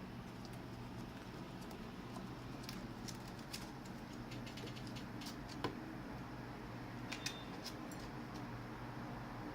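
Pet ferret chewing: irregular small clicks and crackles of teeth working at the object, with one louder click a little past halfway and two close together later, over a steady low hum.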